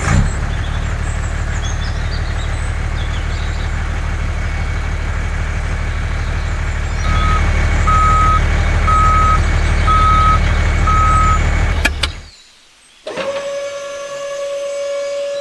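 Truck engine running steadily, louder about halfway through, with a reversing alarm beeping five times about once a second. It cuts off suddenly, and after a short gap a steady tone starts.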